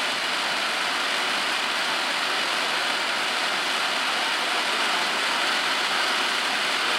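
Ground fountain firework spraying sparks: a steady, even hiss.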